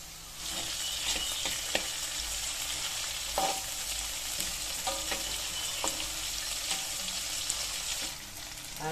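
Salted peda fish, garlic and shallots sizzling in hot oil in a wok, stirred with a metal spatula that scrapes and knocks against the pan several times. The sizzle comes up about half a second in and drops away near the end.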